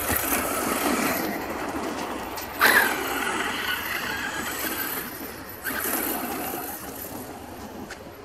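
Electric RC short-course truck with a Tacon 3660 3500kv brushless motor running over sand and gravel, motor and tyre noise with two sudden bursts of throttle about two and a half and five and a half seconds in, then fading as it drives away.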